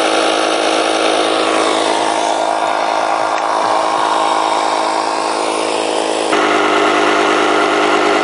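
Cordless digital tire inflator's compressor running steadily, pumping a mountain bike's front tire up to a preset 35 PSI through a Presta valve adapter. Its tone shifts abruptly about six seconds in.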